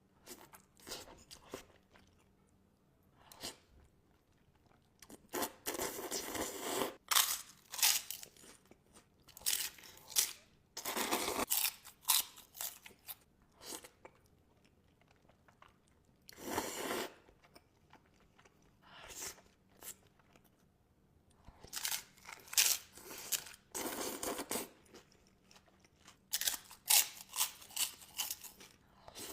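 Close-miked mukbang eating of Buldak spicy instant noodles: irregular bursts of slurping, a second or two long, with chewing in between.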